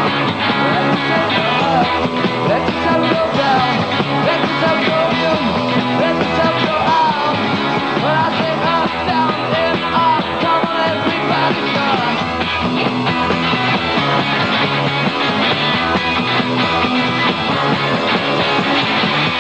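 Rock band playing live: drums, bass and electric guitars in a garage-rock style, with a lead line that bends up and down in pitch through the first half before the band settles into steady playing.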